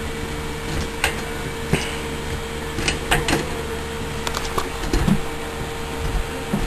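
Scattered metallic clicks and knocks as a BMX front wheel is fitted into the fork, heard over a steady background hum.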